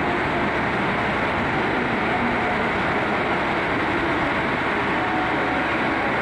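Limited Express Hokuto diesel train (KiHa 261 series) standing at the platform with its engines idling: a steady, dense rumble and hiss.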